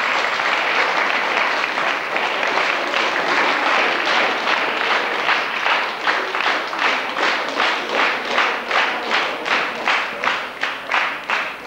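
An audience applauding. The clapping starts as a dense mass, then about halfway through settles into steady clapping in unison, about three claps a second.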